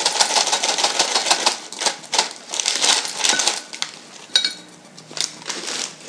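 Clear plastic cereal bag crinkling and crackling as it is pulled and torn open by hand, dense for about four seconds, then a few scattered crackles.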